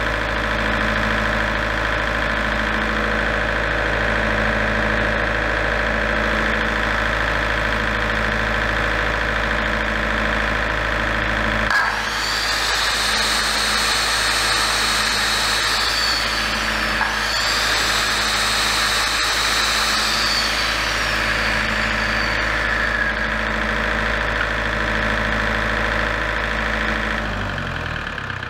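Broadcrown diesel generator's engine running steadily. About twelve seconds in, a Milwaukee circular saw plugged into its output is run twice, each time spinning up to a high whine and winding down, as a load test of the repaired generator. Near the end the engine shuts down and winds down.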